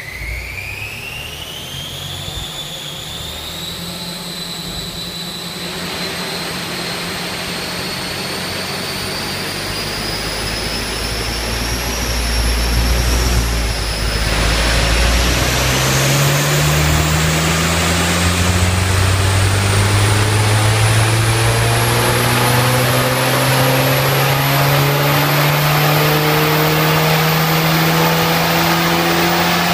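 Mk7 VW Golf GTI's turbocharged 2.0-litre four-cylinder running on a rolling-road dyno, with a high whine rising steadily with road speed. About halfway through, after a brief dip, the engine note comes in louder and climbs steadily under load as the car pulls up through the revs in a power run.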